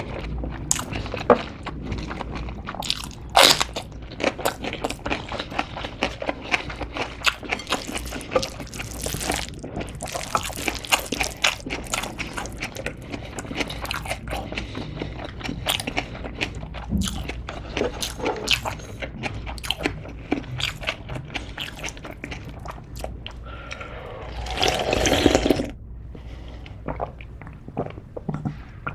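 Close-miked eating sounds: wet chewing and lip smacks over a mouthful of spicy mixed noodles. A louder, longer slurp comes near the end.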